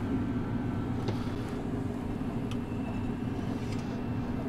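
Steady low hum of a running Yoder pellet grill, with a few faint clicks and scrapes of metal spatulas lifting food off its griddle.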